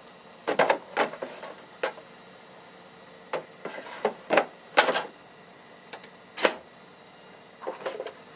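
Plastic drip tray and grounds container of a Schaerer Coffee Factory espresso machine being pulled out and pushed back in: a string of sharp plastic knocks and clatters, some close together and some single.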